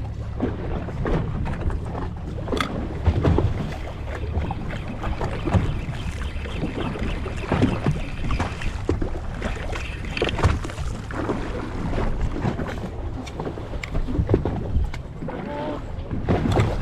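Wind buffeting the microphone on a fishing boat at sea, with uneven gusts and thumps of water against the hull.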